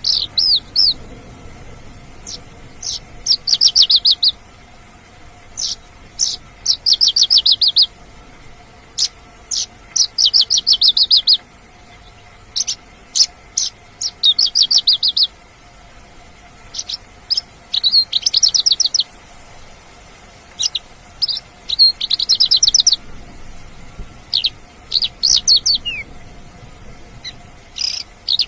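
Mongolian lark singing: repeated phrases of a few sharp, high notes running into a rapid trill, a new phrase every two to three seconds.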